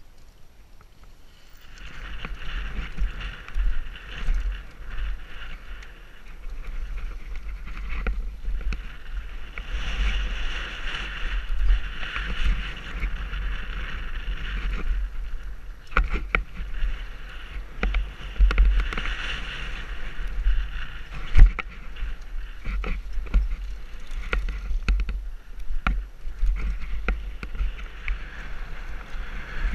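Mountain bike ridden fast down a dirt and gravel trail: wind buffeting the microphone, tyres rolling over gravel, and frequent sharp clicks and knocks from the bike over rough ground, with one loud knock about two-thirds of the way through. The riding noise starts about a second and a half in.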